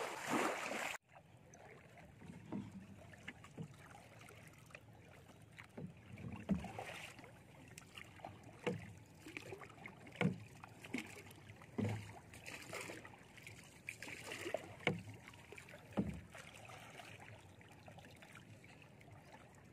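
Wooden paddles stroking a small wooden outrigger boat through calm water: a dull knock every one and a half to two seconds as a paddle meets the hull, with soft water splashing between. It opens with about a second of louder noise that cuts off abruptly.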